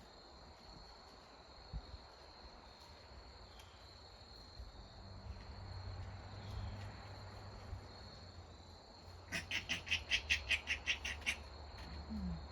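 A steady evening chorus of crickets and other insects trilling over a low rumble of wind. A little after nine seconds in, an animal gives a rapid run of about fourteen sharp, chattering call notes lasting about two seconds, the loudest sound here.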